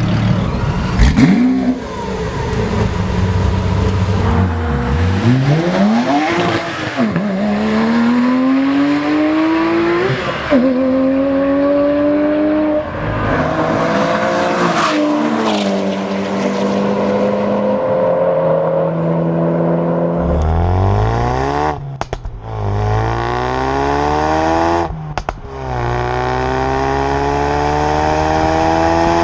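High-performance car engine at full throttle, accelerating up through the gears: the pitch climbs, drops back at each upshift and climbs again. Near the middle it climbs from low once more, cutting out sharply twice in quick succession before pulling in one long rising run.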